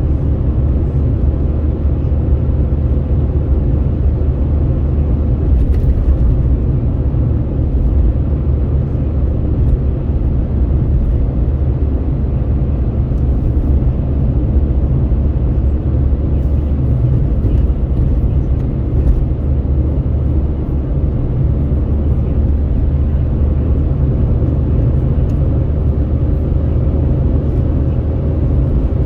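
Steady low rumble of road and wind noise heard from inside a vehicle travelling along a highway, with a faint steady hum above it.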